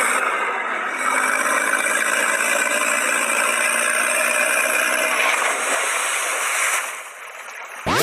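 Tractor engine sound effect running steadily. It drops away about seven seconds in.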